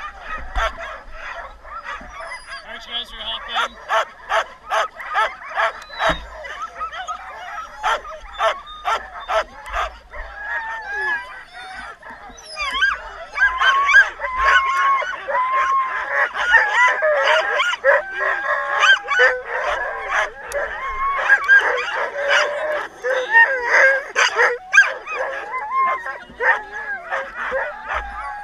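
A team of harnessed sled dogs barking in a rapid string, then many yelping and howling together from about halfway in. This is the excited clamour of a sled team on the line, eager to run.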